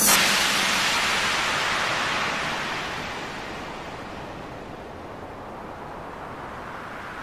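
A cymbal crash ringing out at the end of drum-backed music, fading away over about three seconds into a steady rushing noise.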